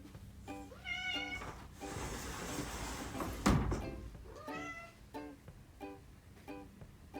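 Light plucked-string background music with a steady beat, over which a cat meows twice, about a second in and again just before the five-second mark. A rustling noise in the middle ends in a single thump, the loudest sound.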